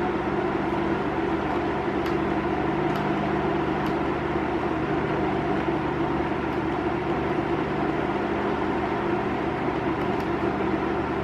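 Sunhow IH-700 induction cooker running at its maximum power setting under a steel pot of water, giving a steady hum and whir. A few faint clicks come from its control buttons being pressed.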